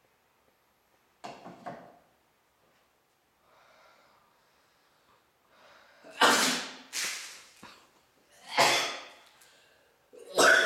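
A boy sneezing with a mouthful of dyed water, the sneezes set off by sniffed black pepper: a softer burst about a second in, then four loud sudden bursts in the second half.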